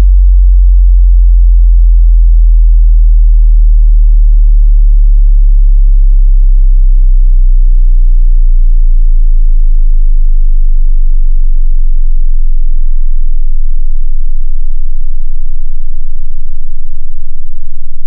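A pure sine-wave bass test tone sweeping steadily downward from about 38 Hz to 2 Hz, falling 2 Hz every second. It is a frequency-sweep test signal for checking subwoofers and car speakers for bass response and rattles.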